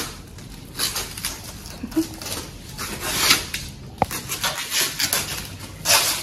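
Clear plastic tape crinkling and rustling in repeated swells as it is tugged and twisted, with a single sharp knock about four seconds in.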